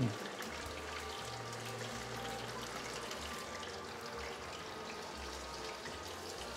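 Hot oil deep-frying panko-breaded fish pieces in a stainless pot: a steady hiss with fine crackling. The oil is running hot, still near 400°F, above the 375°F wanted.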